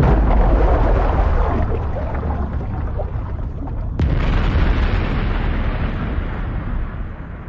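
Film explosion sound effects. A deep booming rumble starts suddenly at the start, then a second sharp blast comes about four seconds in, rolls on and slowly fades.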